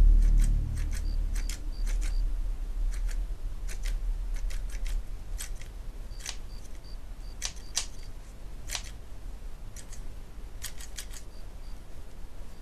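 Steel scissors snipping through blood-soaked cloth: a series of short, sharp snips at irregular intervals. A low drone fades away in the first second.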